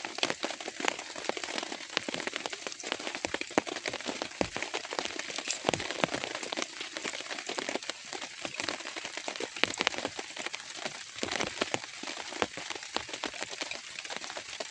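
Steady rain: a dense patter of many drops striking a surface.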